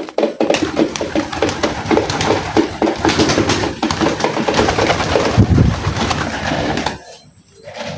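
Domestic pigeons cooing, breaking off briefly about seven seconds in.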